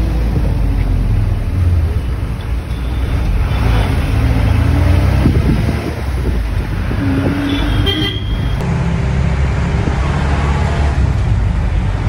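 Bus engine and road noise heard from inside the moving bus, a steady low rumble. A short vehicle horn toot sounds about seven seconds in.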